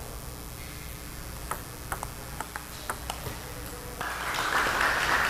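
Table tennis rally: the ball clicks sharply off paddles and table about six times in quick succession. Spectators start applauding about four seconds in as the point is won.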